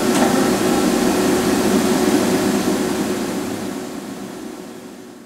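Steady hum and whir of a powered-up CNC horizontal machining center, with one constant low tone and a faint click just after the start, fading out over the last two seconds.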